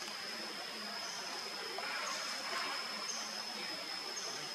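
Steady high-pitched insect drone, with a brief higher note added about once a second, over a soft background hiss; a short soft rustle about two seconds in.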